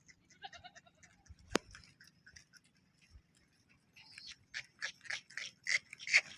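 Goats bleating, with one sharp click about a second and a half in. From about four seconds in there is a quick run of short calls, roughly three a second, growing louder.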